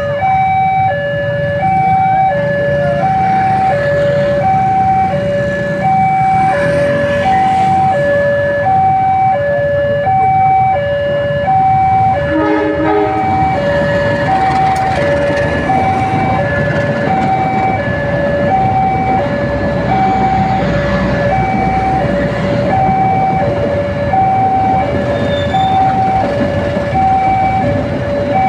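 Railway level-crossing alarm sounding a two-tone warning, alternating high and low about every two-thirds of a second, over the steady low rumble of a passing diesel-hauled passenger train and waiting motorcycles. A short horn blast comes about twelve seconds in.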